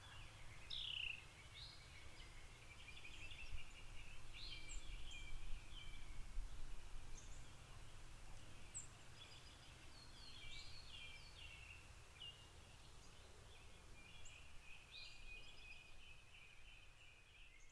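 Small birds chirping and twittering in quick, repeated high calls over a low rumble of street traffic.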